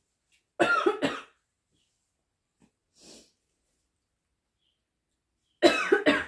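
A woman coughing in two short fits about five seconds apart, each two or three quick coughs, with a faint breath between them: a bite of spicy food has caught in her throat.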